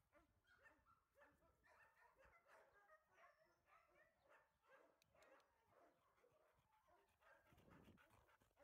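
Faint dog barks and whines, many short calls overlapping, with a low muffled noise close to the microphone near the end.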